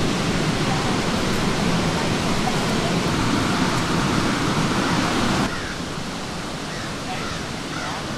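Steady rushing of a river running over rocks, dropping abruptly to a quieter level about five and a half seconds in, with faint short bird calls after the drop.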